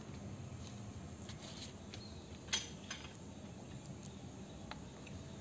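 Light metallic clicks and taps of a spanner working the bolts on a cast-iron differential housing, the sharpest about two and a half seconds in with a smaller one just after, over a low steady background hum.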